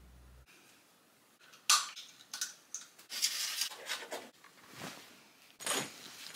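Small handling sounds: a sharp click or knock of toiletry containers about two seconds in, then about a second of a manual toothbrush scrubbing teeth, then rustling of clothes being packed into a bag near the end.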